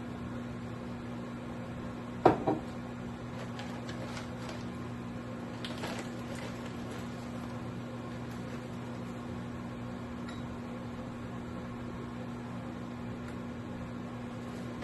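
Microwave oven running with a steady electrical hum. Two sharp knocks about two seconds in, with a few lighter clicks after.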